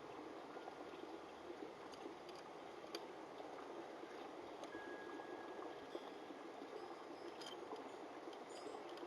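A steady rushing background noise with a few faint, light clicks.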